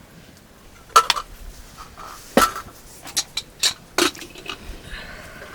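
Metal pots, plates or utensils clinking and knocking together: about five or six sharp clinks at uneven intervals, each with a short ring.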